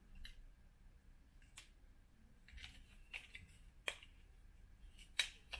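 Scattered faint clicks and taps of a small plastic RC-truck gearbox being handled and tried against the chassis frame rails, with two sharper clicks about four and five seconds in.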